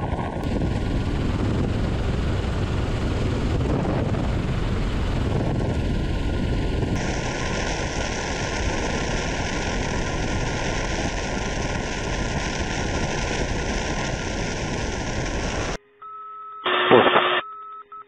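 Ka-52 attack helicopter in low, fast flight: a steady, deep rush of wind and rotor noise. Near the end this cuts off, and a short, loud electronic tone sounds from the cockpit.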